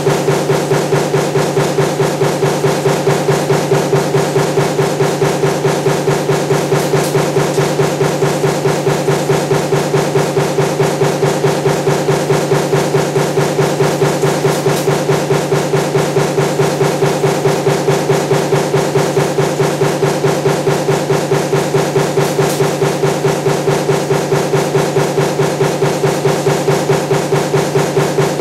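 Power punch press running a die for table fan motor parts continuously, with a fast, even rhythm of strokes over a steady machine hum.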